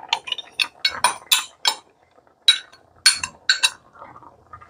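Metal spoon clinking and scraping against a glass measuring cup and a stainless steel pot as frozen mixed vegetables are scraped in and stirred: a quick, irregular series of sharp clinks, with a short pause about two seconds in.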